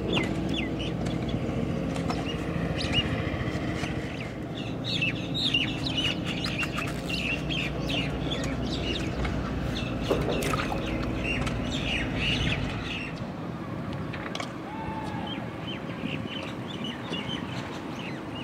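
Many small birds chirping and twittering in quick bursts, over a low steady hum that stops about thirteen seconds in.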